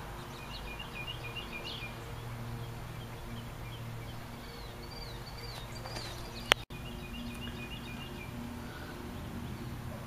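Small birds chirping in quick repeated phrases over a steady low hum, with a single sharp click about two-thirds of the way through.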